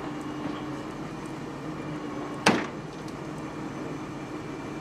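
A vehicle engine idling with a steady hum, and a single sharp knock about halfway through.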